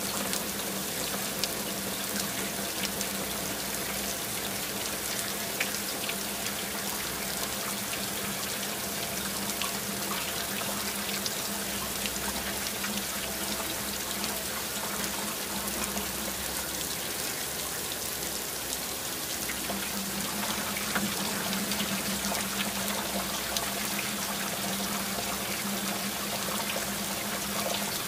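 Heavy rain falling steadily: a dense, even hiss with many sharp drop ticks through it. A low steady hum sits under it at the start, drops away, and returns about twenty seconds in.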